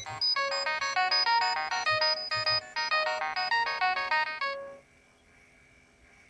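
Nokia 6820 mobile phone playing a polyphonic ringtone: a quick electronic tune with several notes sounding at once, which stops about five seconds in, leaving faint hiss.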